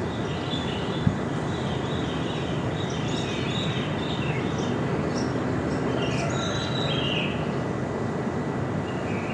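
Small birds chirping in short, scattered calls over a steady low rush of surf on a beach.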